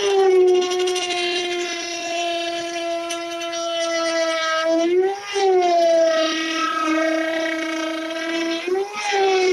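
NRT Pro trim router with a 6 mm bit, its motor running at high speed with a steady high-pitched whine while routing 12 mm plywood. The pitch briefly rises and drops back twice, about five seconds in and near the end.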